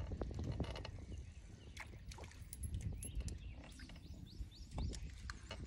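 Faint outdoor ambience at a lakeside: a low rumble, like wind on the microphone, with scattered small clicks and a few short chirps.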